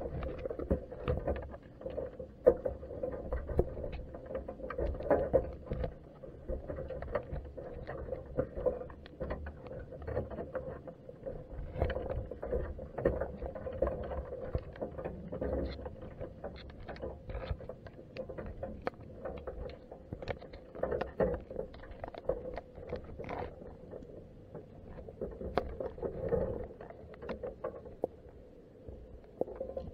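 Muffled underwater sound from a submerged camera in its waterproof housing: a steady hum with low rumble, and many small clicks and taps scattered throughout.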